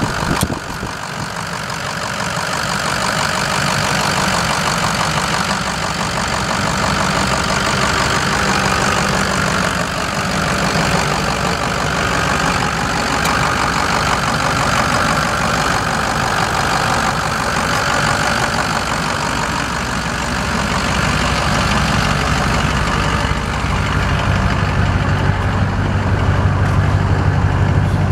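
Ford F550 truck engine idling steadily, heard up close under the open hood. In the last several seconds a deeper drone grows louder.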